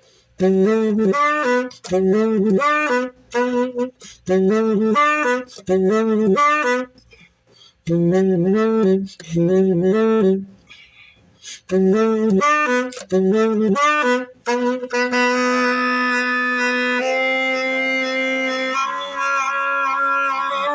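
An experimental music piece: a reedy, wind-instrument-like melody in short repeated phrases with pauses between them, then held chords of several notes from about three-quarters of the way in, shifting twice near the end.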